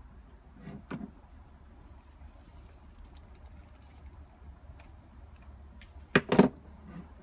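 Two sharp knocks close together about six seconds in, the loudest sound, with a softer thump about a second in and a few faint clicks, over a low steady hum: parts and tools being handled during wiring work inside a van.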